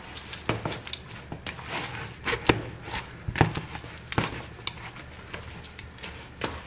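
Hands kneading a firm samosa dough of flour, oil, salt, warm milk and water in a plastic bowl: irregular thumps and squishes as the dough is pressed and folded. The dough is nearly done, firm enough that it no longer sticks to the hands.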